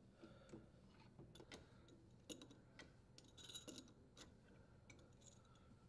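Near silence with faint, irregular metallic clicks and taps of an adjustable wrench turning a dishwasher's threaded leveling leg.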